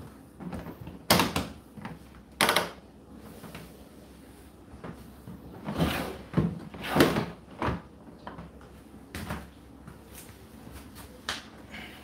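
Plastic water-container drawer of an Indesit IDC8T3 condenser tumble dryer being pulled out and slid back in: a run of separate knocks and sliding scrapes, the loudest about a second in, again at two and a half seconds and around six to seven seconds, with lighter taps later.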